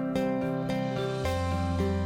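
Background music: gentle plucked acoustic guitar notes over sustained tones.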